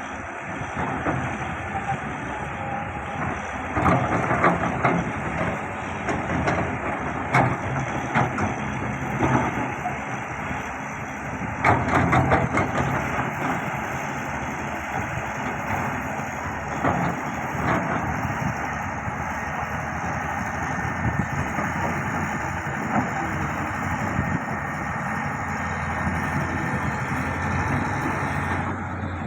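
A heavy construction machine's engine running steadily, with a few short knocks and clanks from its work.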